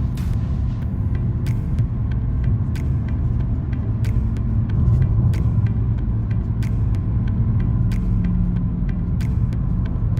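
Low, steady rumble of a car driving, with scattered sharp clicks and ticks at irregular moments.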